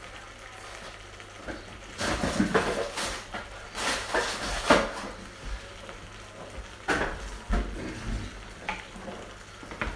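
Cream heating in a frying pan of pear cooked in butter, with a faint sizzle, and about seven sharp knocks and clinks of kitchen utensils spread across it.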